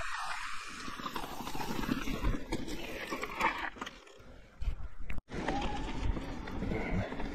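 Electric mountain bike riding down a rough enduro trail: tyres running over dirt and rocks with an uneven clatter of knocks and rattles from the bike, briefly quieter about four seconds in.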